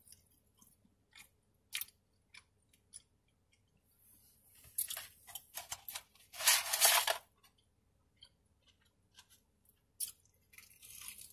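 Soft wet chewing clicks, then paper rustling, loudest about six to seven seconds in, as an onion ring is taken from its paper carton. A crunchy bite into the fried onion ring comes near the end.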